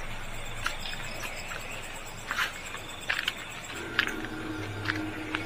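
Night insects such as crickets chirping in short, scattered calls over a steady low hum and background hiss; a faint steady tone joins about four seconds in.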